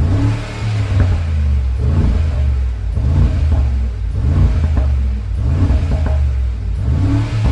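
Mercedes-AMG G63's twin-turbo V8 through a Milltek cat-back exhaust, revved again and again about once a second with a low, heavy exhaust note. Sharp pops and crackles sound from the exhaust as the revs fall.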